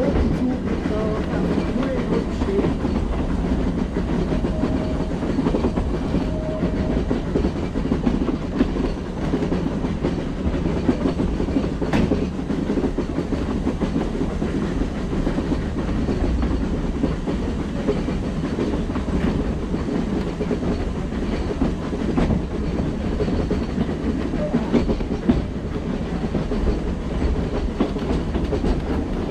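Metre-gauge steam train on the move, heard from a carriage window: a steady rumble of wheels on the track with scattered clicks and knocks, one sharper click about twelve seconds in. The train is hauled by the 1914 HG 3/4 rack steam locomotive BFD 9, climbing toward the Furka pass.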